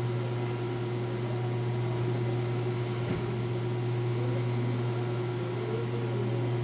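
Steady low hum over a soft hiss: room background noise, with one faint knock about three seconds in.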